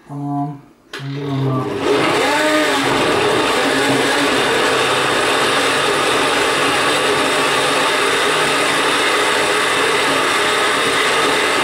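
Countertop blender pureeing chunks of apple, onion and habanero for a hot sauce. It gives one short pulse, stops for a moment, then starts again, winds up to speed and runs steadily at full speed.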